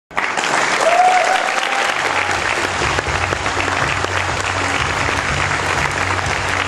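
Audience applauding, a dense steady clatter of many hands clapping, with a short rising cheer from the crowd about a second in.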